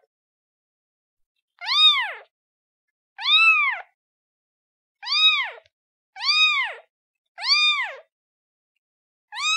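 Kitten meowing to call its mother: six short, high meows, each rising then falling in pitch, one to two seconds apart, with silence between.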